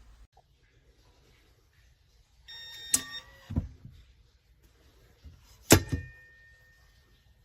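Metal handgun safe being handled: a short steady electronic tone ending in a click, a couple of dull knocks, then a sharp metallic clank that rings briefly.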